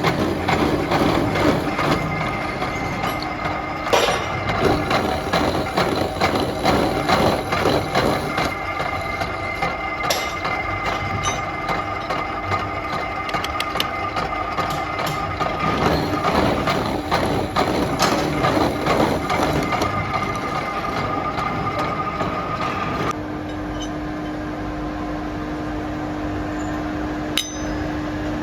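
Metalworking factory noise: dense, irregular clanking and knocking of metal on metal over the steady hum of running machinery. For the last few seconds the clanking mostly stops, leaving a steady machine hum with one low tone and a single sharp click.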